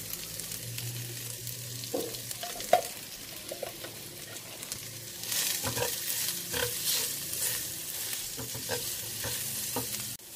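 Sliced chillies, torch ginger flower and spice paste sizzling in a non-stick frying pan, with a silicone spatula scraping and tapping against the pan as it is stirred. The stirring gets louder and busier from about five seconds in.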